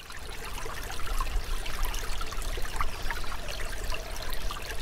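A shallow creek flowing and babbling over rocks: a steady rush of water full of small splashes and trickles. It fades in over about the first second.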